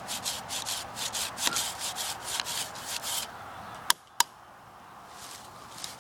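Hand saw cutting through tree wood in quick back-and-forth strokes, about four a second, stopping about three seconds in. Two sharp clicks follow about a second later.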